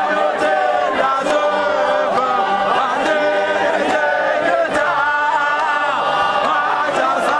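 A large choir of men singing a Shona hymn unaccompanied, many voices in harmony with held and sliding notes.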